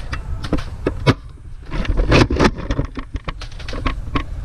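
Wind and handling rumble on a GoPro mounted on a Nerf blaster, with a string of sharp clicks and knocks as the blaster is handled in play.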